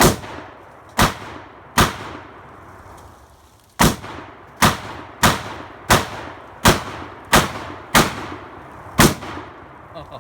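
AR-15-style semi-automatic rifle fired in rapid succession: eleven shots in about nine seconds at an uneven pace, with a longer pause after the third. Each shot trails off in echo.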